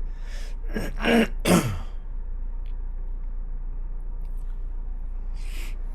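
A man clearing his throat: two short, loud rasps falling in pitch about a second in, then a short breathy hiss near the end, over a steady low hum.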